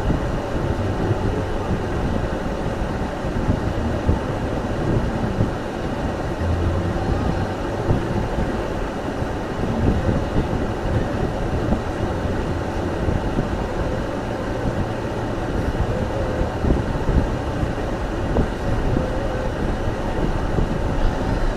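Steady low rumble of a car driving on snowy roads: tyre and engine noise without a break.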